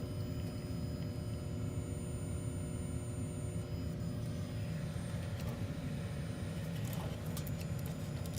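Old ICP gas furnace running with a steady low hum and rumble, with a few light clicks near the end.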